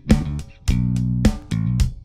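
Electric guitar playing a riff of short phrases: notes and chords struck with sharp attacks about every half second, with brief gaps between them.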